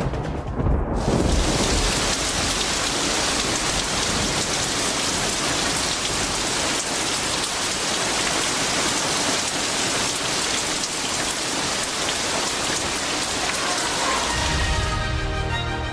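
Recorded rain sound effect in a dance soundtrack: a steady, dense downpour hiss that takes over about a second in, with music coming back in near the end.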